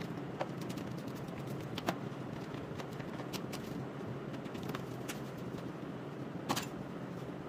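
Steady workshop background noise with scattered light clicks and taps from parts being handled in a car's engine bay, the loudest about six and a half seconds in.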